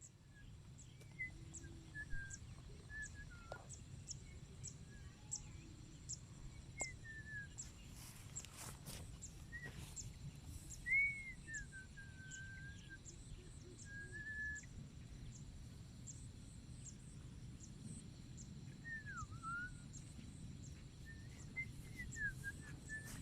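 Faint rural outdoor ambience: scattered short whistled bird calls, some sliding in pitch, over a regular high ticking about twice a second and a low background rumble.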